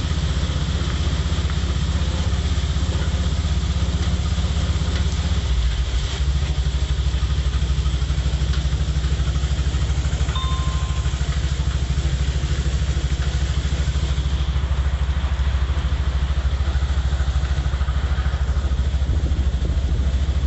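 Motorcycle engine of a tricycle running steadily under way, its pulsing note shifting briefly about five and a half seconds in, with a steady hiss of heavy rain over it.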